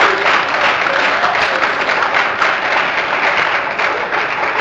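Church congregation applauding: many hands clapping in a dense, steady patter.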